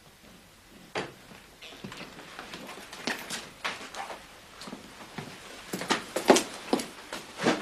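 A run of irregular knocks and clicks in a small room, starting about a second in and coming thicker and louder towards the end.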